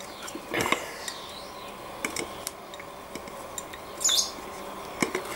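Caper berries being pressed down by hand in a glass jar: scattered light knocks and clinks of glass, the brightest clink about four seconds in.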